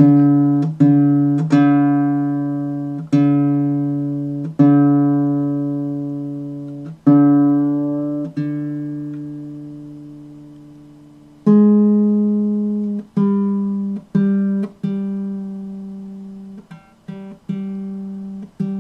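Single strings of a baritone ukulele plucked one at a time and left to ring, as it is being tuned. A lower string is plucked about seven times, then from about halfway a higher string is plucked repeatedly, more quickly.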